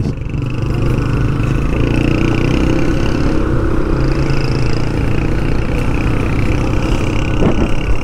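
A motor vehicle's engine running steadily, with road and traffic noise.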